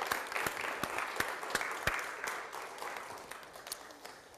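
Congregation applauding, many hands clapping together, the clapping dying away gradually toward the end.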